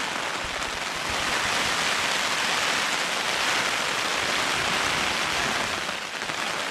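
Steady rain shower, a pretty good rain, its hiss getting louder about a second in.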